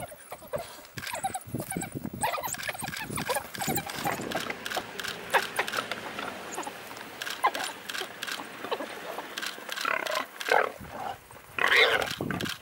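A pack of African wild dogs mobbing and tearing at a warthog: scuffling and short, high animal cries throughout, with a louder cry about a second before the end.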